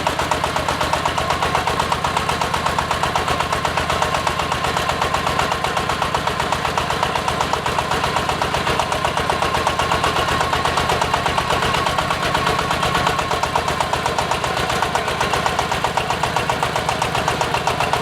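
Diesel engine of a hydraulic water-well drilling rig running steadily, with a rapid, even pulsing.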